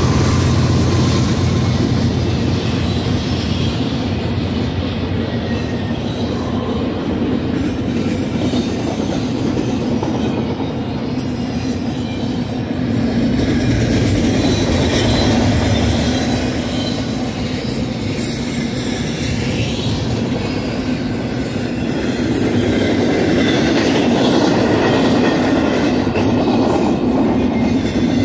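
Double-stack intermodal freight train rolling past at speed, its steel wheels rumbling and clattering over the rail. The low drone of the departing diesel locomotives fades out in the first ten seconds or so.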